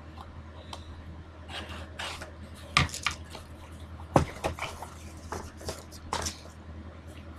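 A cardboard mystery tackle box being opened and its contents handled: rustling with a few sharp knocks and taps, over a steady low hum.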